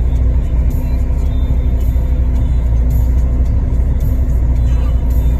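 Off-road vehicle's engine running steadily, a continuous low rumble with a steady hum.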